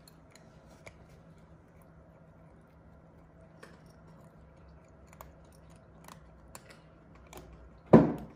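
Cats eating dry kibble from ceramic bowls: faint scattered crunching clicks, a few a second at most. Near the end, one loud dull thump.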